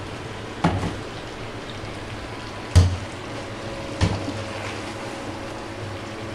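Wooden spatula stirring wet, saucy vegetables and chicken in a granite-coated non-stick wok, knocking against the pan three times, the loudest about a third of the way in, over a steady low hiss.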